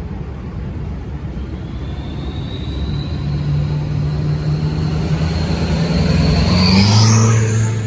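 Ford 6.7 Powerstroke V8 turbo-diesel fitted with a KC Whistler turbo, accelerating. A high turbo whistle climbs slowly in pitch as the engine note rises, shoots up sharply near the end and then begins to drop.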